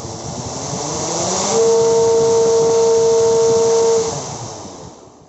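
Brushless motor spinning a 12-inch propeller, its speed set by hand through an electronic speed controller. The whine climbs in pitch over the first second and a half and holds high and steady with a loud rush of air, then drops about four seconds in as the motor is throttled back and winds down.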